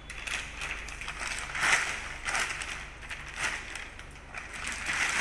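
Clear plastic wrapping rustling and crinkling in several irregular bursts as a wrapped air rifle is handled and lifted out of its foam packing. The loudest crinkle comes a little under two seconds in.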